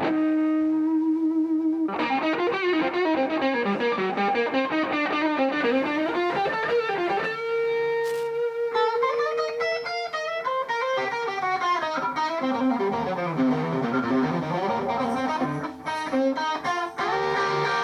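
Live rock band playing an instrumental passage, led by electric guitar: a held note, then fast melodic runs from about two seconds in, over bass and drums.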